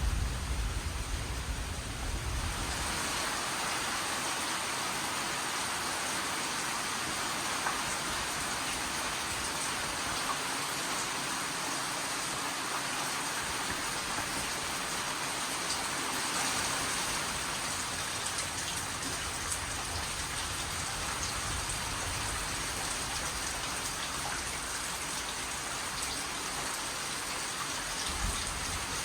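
Steady rain falling, an even hiss of drops, with a low rumble that dies away in the first two seconds.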